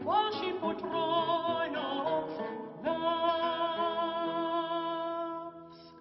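Soprano voice singing with classical guitar accompaniment: a note swoops up at the start, then a long final note is held with vibrato over plucked guitar strings and fades out near the end.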